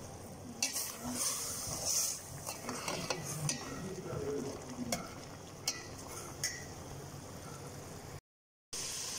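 Metal slotted spoon stirring neem leaves and grated coconut in a stainless steel pot, clinking against the pot several times over a faint steady sizzle of the cooking mixture.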